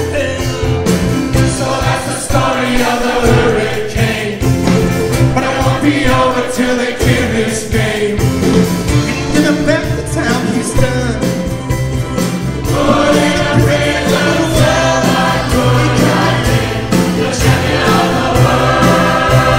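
Live music: acoustic guitar and violin with a large choir singing, growing fuller about two-thirds of the way in.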